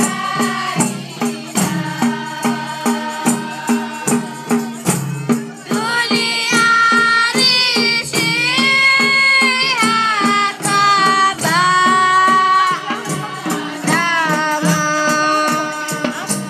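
Deba: a group of girls chanting together in unison over a rattling percussion beat of about two strokes a second. From about six seconds in the voices hold long notes that slide up and down between pitches, and the beat recedes behind them.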